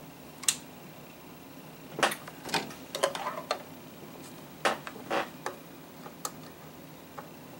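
Handheld digital multimeter and its test probes being handled on a circuit board: scattered light clicks and taps, several close together a few seconds in.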